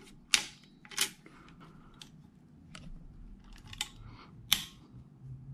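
Several sharp metallic clicks and knocks as a stone block is seated in a steel clamping fixture and the expanding toggle clamp's handle is worked to lock it.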